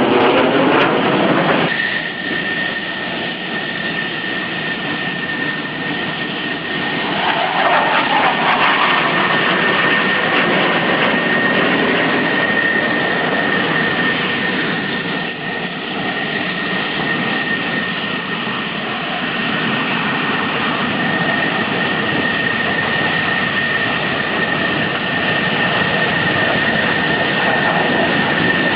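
Jet engine running with a loud, steady roar and a steady high whine. There is a brief sweep in pitch at the start and another about seven seconds in, as of aircraft passing.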